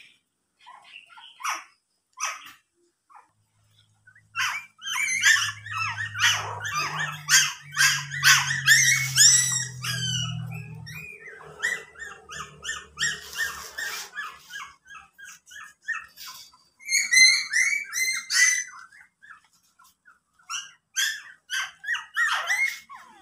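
Young puppies crying: many short, high-pitched whines and yelps, often overlapping, coming in busy spells with quieter gaps between them.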